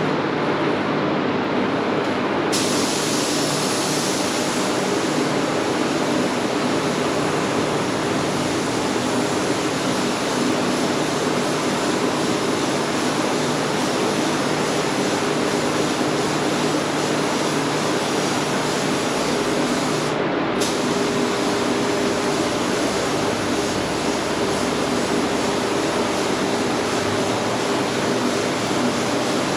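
Paint spray gun hissing steadily as it sprays primer, a loud, even rush of compressed air; the high hiss strengthens about 2.5 s in and cuts out for an instant near 20 s.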